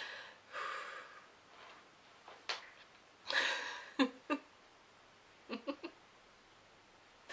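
A woman's quiet laughter: breathy exhaled laughs and short giggles, coming in separate bursts with pauses between.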